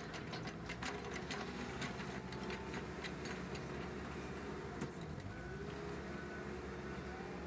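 Wheel loader's diesel engine running as the bucket pushes into a pile of pumice and volcanic ash, with many sharp clicks and crunches of the grit over the first five seconds. About five seconds in the engine pitch rises as the loaded bucket lifts, and short repeated beeps begin near the end.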